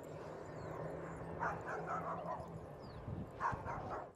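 A dog barking in two short bouts, about a second and a half in and again near the end, over a low steady hum.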